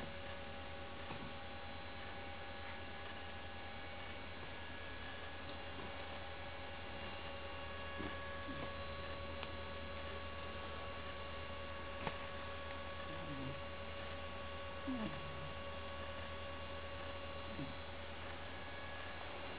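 Steady electrical hum with several fixed tones over faint room noise, with a small click about twelve seconds in and a few faint short sounds a little later.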